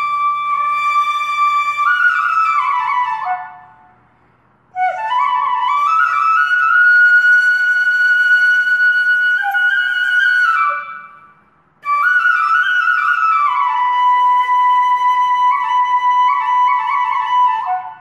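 Background music: a slow melody of long held notes in three phrases, each fading away, with short breaks about 4 and 11 seconds in.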